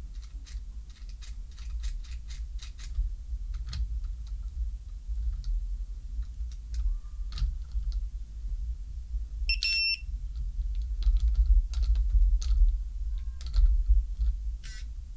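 Smart door lock being handled and operated: a string of irregular plastic clicks and taps, with a short electronic beep from the lock a little under ten seconds in, and a couple of fainter short tones. A steady low hum runs underneath.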